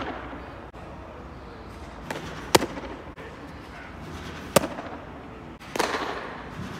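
Baseballs smacking into a catcher's mitt: sharp pops about two and a half and four and a half seconds in, then a louder, longer cluster of hits about six seconds in, over steady indoor hum.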